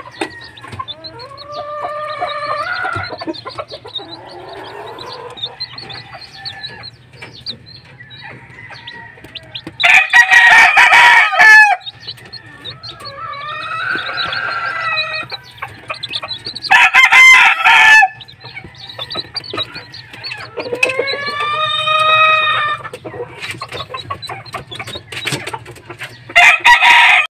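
Roosters crowing several times, each crow a loud call of a second or two that rises and falls in pitch, over the steady high peeping of young chicks.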